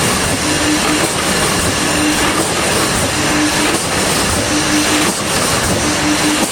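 Automatic wire mesh welding machine running in production. A steady mechanical clatter is overlaid by a short low hum that comes back about every second and a third.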